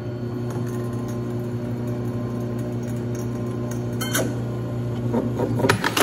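Drill press running with a bimetal hole saw set in an aluminum disc: a steady motor hum. Sharp metallic clinks come about four seconds in, and a cluster of louder knocks near the end.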